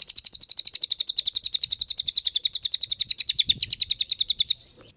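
A songbird giving a rapid-fire 'tembakan' trill, one high note repeated about a dozen times a second, that stops abruptly near the end.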